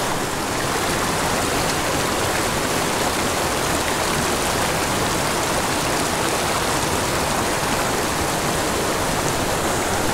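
Small mountain creek rushing over rocks and spilling down a small cascade: a steady rush of water.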